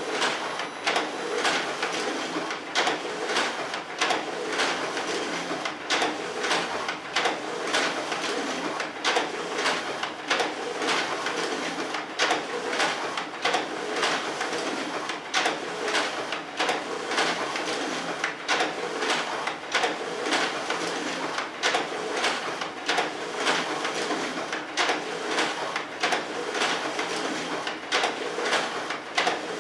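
Automatic document feeders of two office copiers scanning double-sided originals at the same time, a steady run of mechanical whirring with regular clicks and paper swishes as sheets feed through, roughly one to two a second.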